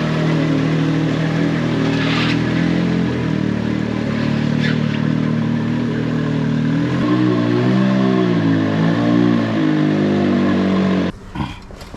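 Can-Am UTV engine running, its revs rising and falling briefly a few times, then switched off suddenly near the end.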